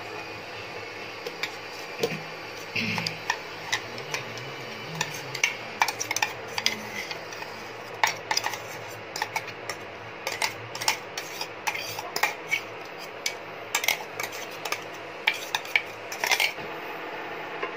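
A spatula scraping and knocking against a cooking pan as ground coconut is stirred into the vegetables. The clicks are irregular, sparse at first, then come thick and fast from about five seconds in until shortly before the end.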